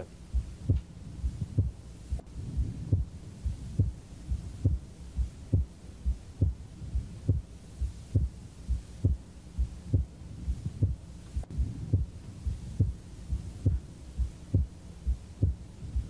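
Heart sounds heard through a stethoscope at the fourth left sternal border: a regular beat a little faster than one a second, over a low hum. The second heart sound is widely split on every beat, whether breathing in or out, because of a right bundle branch block.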